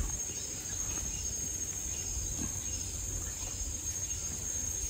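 A steady high-pitched insect chorus, with a few faint soft scrapes and taps of a fork pulling the flesh off boiled mackerel tuna on a plate.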